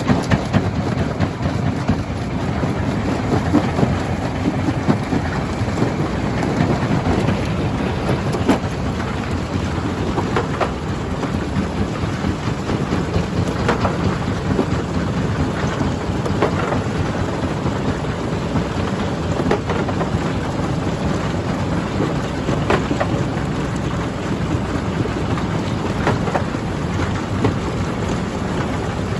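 Stone crusher running: a dense, steady rumble with scattered sharp cracks of rock breaking.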